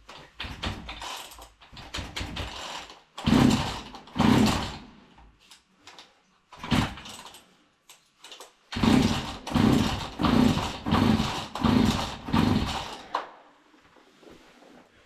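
Old Husqvarna 40 two-stroke chainsaw being pull-started by its recoil starter cord, each pull a short rasping burst. There are two pulls, a pause, one more, then about six quick pulls in a row, and the engine never catches.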